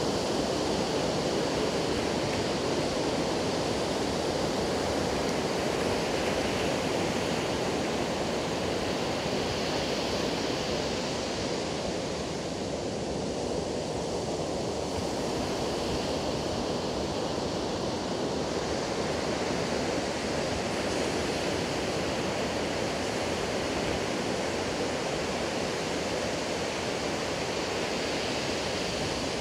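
Ocean surf breaking on a sandy beach: a steady, unbroken rush of waves that eases slightly about halfway through.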